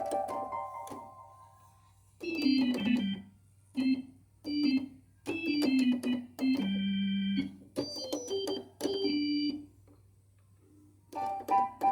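Nord Stage 3 stage keyboard played on an organ-like sound in short phrases and chords with pauses between them. A note dies away at the start, and playing picks up again near the end.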